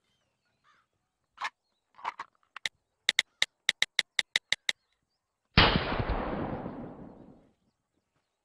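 A few scattered taps, then a fast run of about a dozen sharp phone keypad clicks as a text is typed, followed about a second later by a single loud gunshot that fades away over about two seconds.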